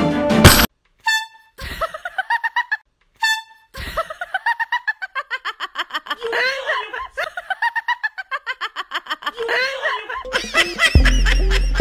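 Two short honk-like tones about two seconds apart. Then a long run of rapid, high-pitched laughter, added as a comedy sound effect. Background music comes back in near the end.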